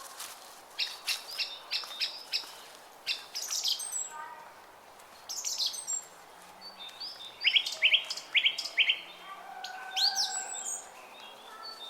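Several songbirds singing and chirping together, with quick runs of short high notes in overlapping phrases, a few lower whistled notes, and a busy stretch of song from about seven seconds in.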